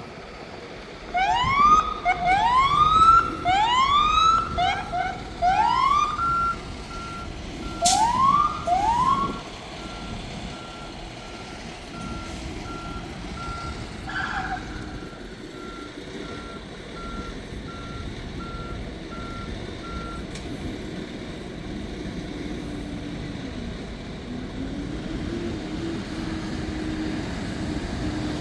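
Police escort siren giving a series of short rising whoops in the first nine seconds or so, with a steady string of evenly spaced beeps going on until about two-thirds of the way through. A truck engine runs underneath.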